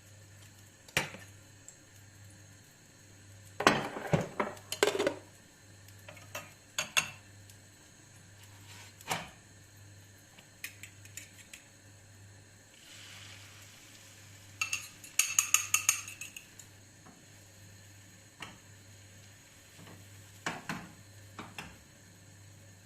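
Kitchen utensils and dishes knocking and clinking at irregular moments during food preparation, with a quick run of ringing clinks about fifteen seconds in.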